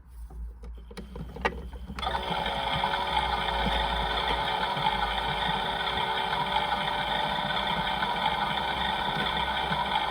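A few clicks, then about two seconds in the small electric motor of a toy washing machine starts and runs steadily with a whirring hum.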